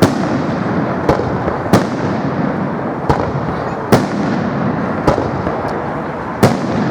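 Aerial firework shells bursting: about seven sharp bangs, roughly one every second, over a steady background of crackle and rumble.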